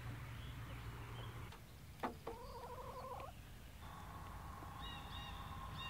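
Faint bird calls: a short wavering call just after a click about two seconds in, then a longer held call with higher chirps over it near the end.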